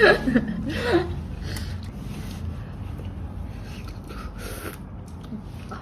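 A woman's short voiced sounds in the first second, then a short noisy breath about four seconds in, over a low steady rumble of room noise.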